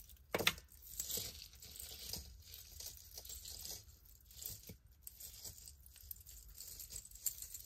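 Costume jewelry being handled by hand: scattered light metallic clicks and clinks, the sharpest about half a second in, with soft rustling.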